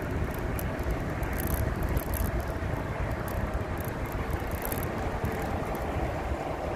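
Riding an electric bike: wind buffets the microphone in a steady low rumble, over a thin steady whine and scattered faint high ticks.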